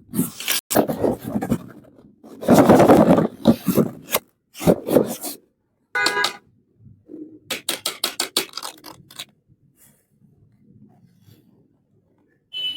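Small plastic toy pieces and packaging being handled, with rustling and scraping. A short squeak comes near the middle, then a quick run of clicks, and only faint handling noise remains for the last few seconds.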